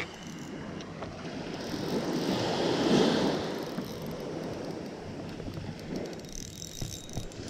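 Small waves breaking and washing up a sandy beach, swelling loudest about three seconds in, with wind on the microphone.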